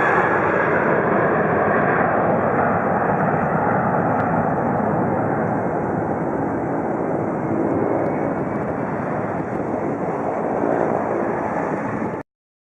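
Steady jet engine noise from a departing Boeing 747-400 at takeoff power, easing slightly before it cuts off abruptly near the end.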